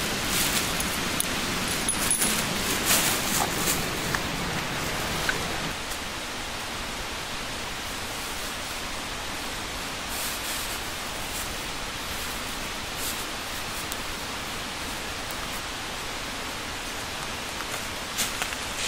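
Steady rushing noise, with light rustling and clicks over the first five or six seconds before it settles.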